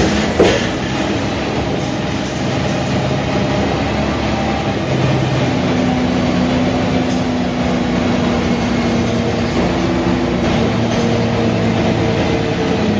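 Mercedes-Benz O345 Türk city bus's diesel engine running under way, with steady road and body noise. The engine pitch rises about five seconds in as it pulls harder. There is a sharp knock just after the start.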